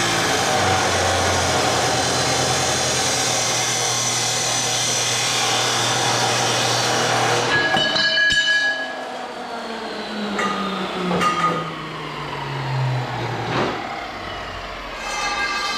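Abrasive cut-off wheel cutting through a metal brace piece: a loud steady grinding hiss for about seven and a half seconds, then it stops and the motor winds down with a falling hum over several seconds. A few metallic clinks ring out as the cut piece comes free.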